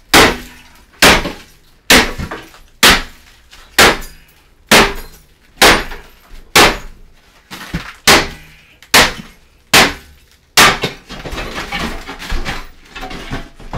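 An axe hammering a heavy old bathtub to break it up: about a dozen hard blows roughly a second apart, each with a bright shattering crack, then a clatter of loose broken pieces near the end.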